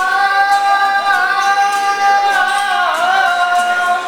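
A man singing one long, high held note for about four seconds, wavering in pitch about three seconds in.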